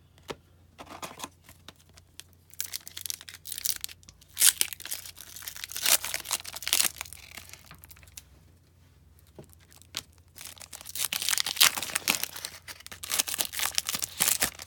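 Foil wrapper of a trading card pack being torn open and crinkled by hand, in two spells of crinkling with a quieter pause between them.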